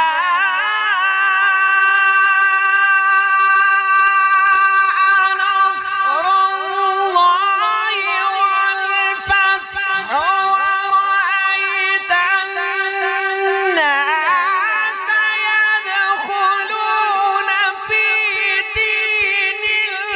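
A man's voice reciting the Quran in long, ornamented melodic phrases, holding sustained notes with small quavering turns. About fourteen seconds in, the voice slides down and moves to a new pitch.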